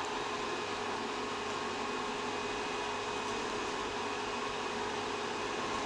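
Elegoo Mars resin 3D printer's cooling fan running steadily, a quiet whirring hum that sounds a bit like a computer fan.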